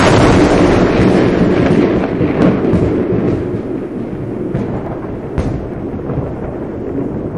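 Thunder sound effect: a sudden loud crash, then a long rolling rumble with a few sharp crackles, slowly fading.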